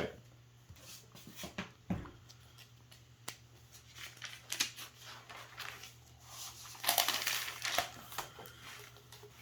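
Paper pages rustling and being handled, with scattered light clicks and a louder crinkling rustle about seven seconds in.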